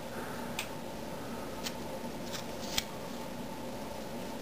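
Teflon thread-seal tape being wound by hand onto a small brass pipe fitting: a few light clicks and ticks of tape and fitting being handled, over a steady background hum.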